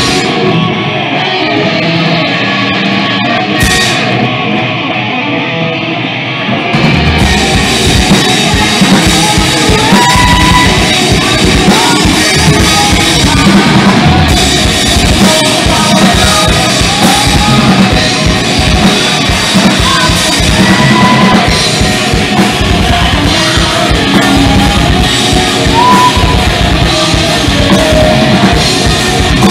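Live heavy rock band, two distorted electric guitars and a drum kit, playing loud. About seven seconds in the sound grows louder and fuller in the low end as the whole band drives harder.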